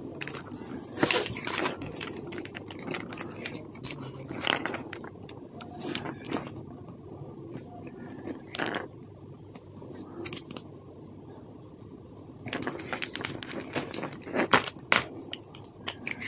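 Irregular clicks, taps and light rustles of a serial-light bulb string and its thin wires being handled and probed with a continuity tester, quieter in the middle and busier again near the end.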